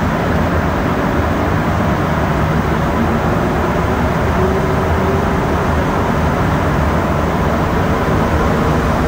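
Rubber-tyred Montreal Metro train running, heard from inside the car: a steady, even noise with a faint hum, as it passes the platform and enters the tunnel.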